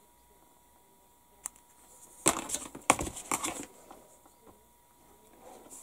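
Decal paper being trimmed and handled, with sharp snips and clicks: one faint click about one and a half seconds in, then a quick cluster of louder ones between two and four seconds in.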